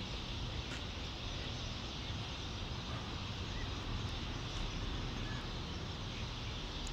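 Steady background noise, a low rumble under a hiss, with no distinct event.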